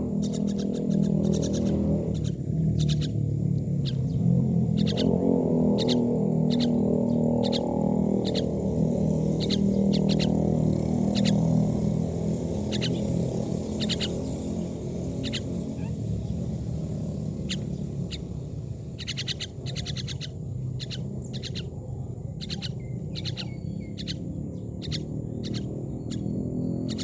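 Myna birds chirping: many short, sharp calls in quick runs throughout, over a louder steady low background sound.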